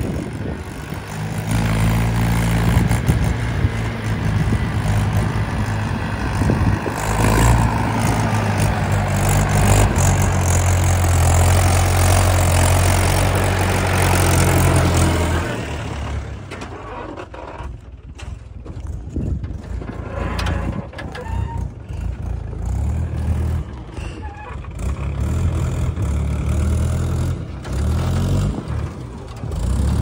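Mahindra 475 DI tractor's diesel engine running as it pulls a trolley loaded with earth. The engine sound is loud and steady for about the first fifteen seconds, then drops and goes uneven.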